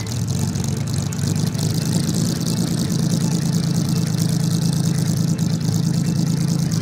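Ferrari 330 P4 replica's engine idling steadily just after a cold start, heard from behind at the exhaust pipes. The note settles in over the first second and then holds level.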